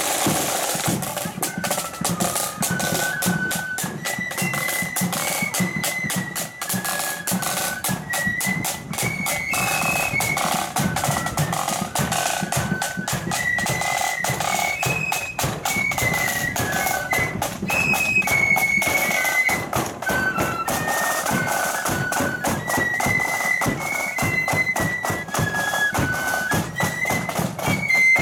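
Marching flute band playing a tune: high flutes carry the melody over steady snare and bass drums. The flutes come in about a second in, after a stretch of drums alone.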